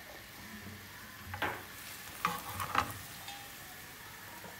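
Milk-and-cream sauce simmering and bubbling in a nonstick frying pan as a metal slotted spatula stirs it, with a few short scrapes and knocks of the spatula against the pan between about one and three seconds in.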